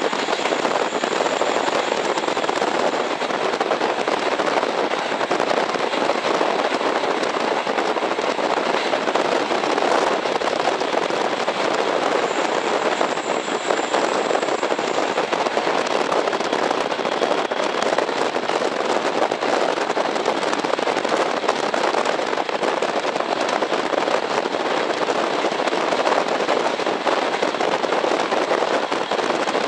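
Running sound of a JNR KiHa 40 series diesel railcar heard inside the car at speed: a steady, dense noise of engine and wheels on rail, with fine crackle throughout.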